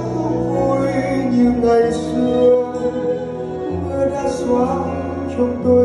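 Live band accompanying a male singer on a ballad, the voice carrying long held notes over the instruments.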